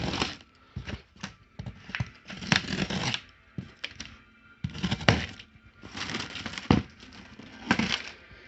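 Packaging torn open and rustled while new alloy wheels are unboxed, a run of irregular crackling, ripping bursts.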